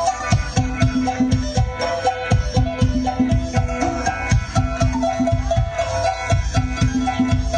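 Isan folk dance music for a mo yao ritual dance: a fast, steady drum beat under a short repeating melody.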